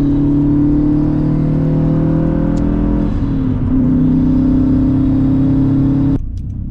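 2011 Subaru WRX's turbocharged 2.5-litre flat-four engine pulling under acceleration. Its note climbs slightly, drops in pitch at a gear change about three seconds in, then holds steady until the sound cuts off suddenly near the end.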